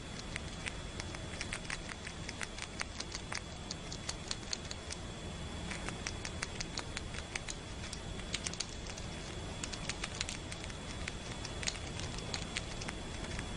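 Squirrel gnawing and chewing on a lemon: a dense, irregular run of crackly clicks from teeth working the peel.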